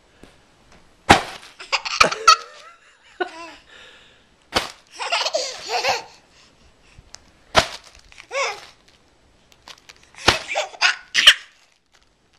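A six-month-old baby laughing in about four separate fits with short silent pauses between them, each fit opening with a sharp click.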